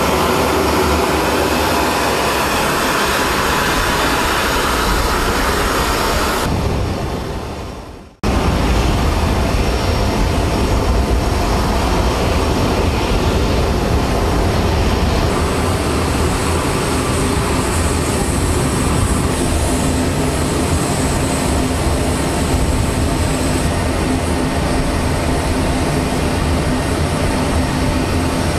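Loud, steady aircraft turbine noise with a low rumble. It fades out about seven seconds in, and after a brief gap a similar steady engine noise starts again, with a high whine joining about halfway through.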